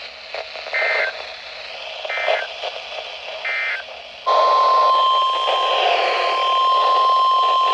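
NOAA Weather Radio Emergency Alert System signal over radio hiss: three short buzzy SAME data bursts about a second and a half apart, then about four seconds in the steady 1050 Hz warning alert tone, which marks the start of a new warning broadcast.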